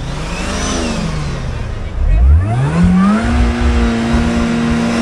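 1976 AMC Pacer's engine running as the car rolls slowly, its note wavering up and down. About two seconds in, the pitch rises and then holds as a steady drone, with heavy low rumbling and knocks underneath.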